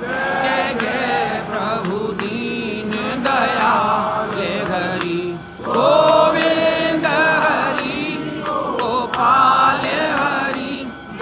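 Voices singing a Hindu aarti hymn during the temple lamp offering. The singing swells louder about six seconds in.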